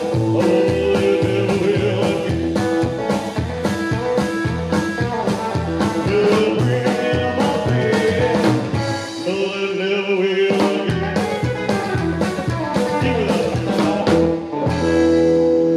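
Live rock and roll band playing: upright double bass, drum kit and electric guitar behind a male singer. Near the end the band holds one long chord.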